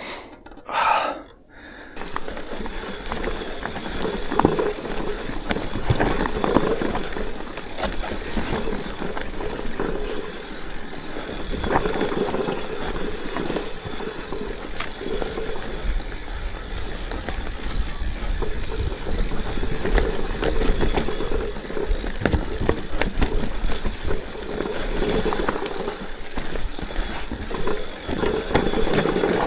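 Orbea Rallon mountain bike riding over a rough dirt trail: continuous tyre and drivetrain noise with frequent knocks and rattles from the bike over bumps.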